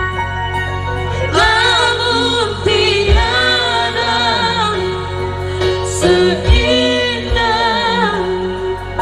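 A man and a woman singing live into microphones, backed by electronic keyboards, all played loud through a PA system.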